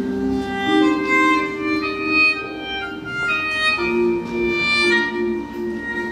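Instrumental music from a small live ensemble: slow, sustained notes overlapping, with a pair of low held notes underneath and higher drawn-out notes changing about once a second above them.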